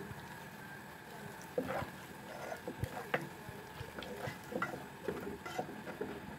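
Wooden spoon stirring a liquid mixture in a metal pot, with irregular light knocks and scrapes as the spoon strikes the pot's side, starting about a second and a half in.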